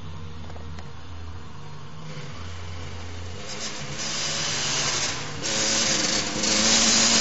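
Motocross bike engine running with a low steady hum, then getting much louder over the second half and loudest near the end.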